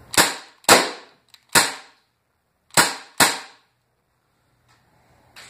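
Crosman C11 .177 CO2 BB pistol, non-blowback, firing five shots, each a sharp crack: three in quick succession, then after a pause of about a second two more close together.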